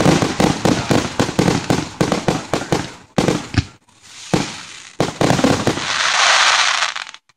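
Aerial fireworks finale: a rapid volley of shell bursts, several bangs a second, thinning to a few single bangs after about four seconds. Near the end comes a dense crackle from a large glittering shell, which cuts off suddenly.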